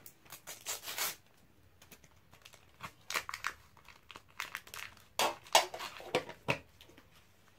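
A sticker packet's wrapper being torn open and crinkled by hand, in a few short spells of crackling.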